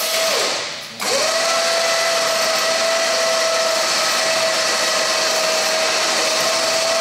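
Electric chain hoist over a cryonics storage tank running with a steady whine. It winds down just after the start, then spins up again about a second in and runs evenly.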